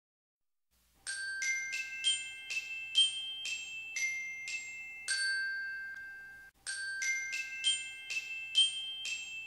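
Short intro jingle of bright, bell-like struck notes, about two a second, each ringing on briefly; the phrase starts about a second in, breaks off a little past the middle, and begins again.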